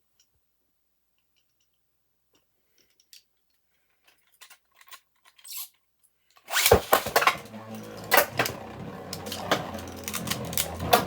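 A few faint clicks, then about six and a half seconds in two 3D-printed Beyblade spinning tops are launched into the stadium. They whir steadily, with frequent sharp clacks as they strike each other.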